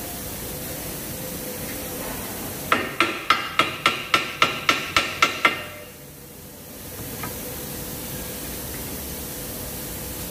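Hammer blows on metal: a quick run of about eleven ringing strikes, roughly four a second, lasting under three seconds, while a new lower control arm is being fitted to the suspension.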